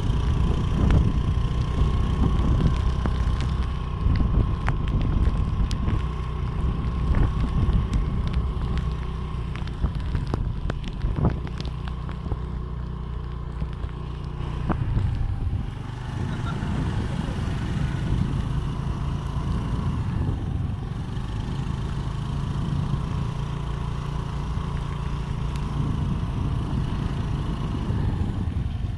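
A motor vehicle's engine running as it drives along, heard as a steady low rumble mixed with road and wind noise. It drops somewhat quieter for a few seconds near the middle, then picks up again.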